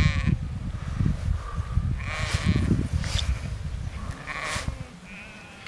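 Sheep bleating: several short, wavering bleats, one at the start, one about two seconds in and two close together near the end.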